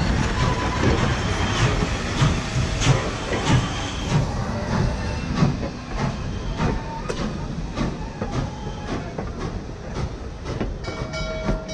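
Norfolk and Western 611, a J-class 4-8-4 steam locomotive, and its passenger coaches rolling past close by: a rumble with a run of wheel clanks and clicks over the rail joints. A steady ringing tone joins near the end.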